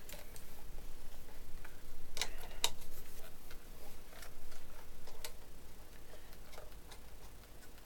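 Light plastic clicks and taps as propellers are handled and tried on the threaded motor shafts of a DJI Phantom 1 quadcopter, with a few sharper clicks about two seconds in and about five seconds in.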